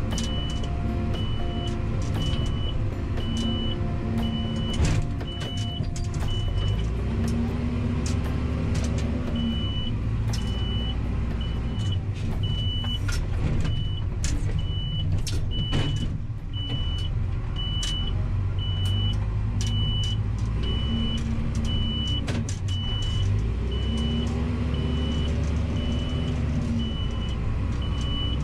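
Backhoe engine running as it pushes snow, rising and falling in pitch as it revs up and eases off, with occasional knocks. A short high beep repeats steadily, a little more than once a second.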